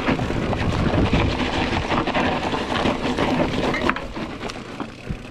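Rocky Mountain Instinct full-suspension mountain bike riding down a rough dirt singletrack: tyres crunching over dirt and stones and the bike rattling with many small knocks, under a steady rushing noise.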